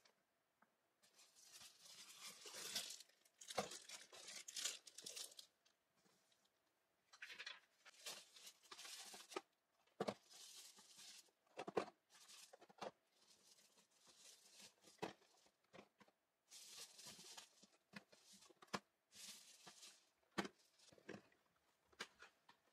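Plastic and paper packaging rustling and crinkling in repeated bursts as items are unpacked by hand, broken by several light knocks of small cardboard medicine boxes being set down and stacked on a table.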